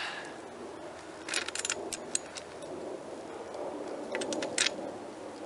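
Light metallic clicks of a screw, nut and screwdriver being handled at a plastic mower handle: a quick run of clicks about a second in, a couple of single clicks, then another short run near the end.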